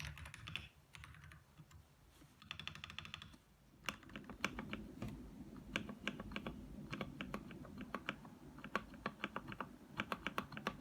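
Dareu EK75 Pro mechanical keyboard being tested. A quick run of typing comes first, then from about four seconds in the stock spacebar is pressed over and over, each press a separate clack with a deeper body than the other keys.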